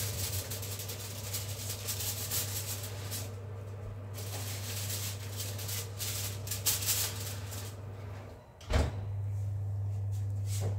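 Foil-covered trays sliding onto metal oven racks, with the foil crackling and rustling, then the oven door shut with one sharp knock near the end. A steady low hum runs underneath.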